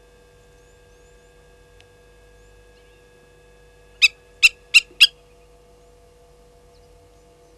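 Blacksmith lapwing giving four sharp metallic 'tink' alarm calls in quick succession about four seconds in, set off by a slender mongoose.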